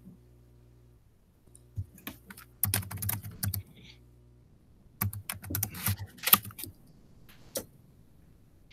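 Typing on a computer keyboard: two short runs of rapid key clicks, about two and five seconds in, and a single click near the end.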